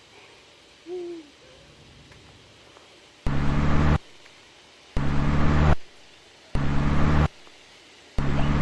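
A trapeze bar's swing hardware groaning in a low, hoot-like honk, four times at an even swinging rhythm, each note about three-quarters of a second long.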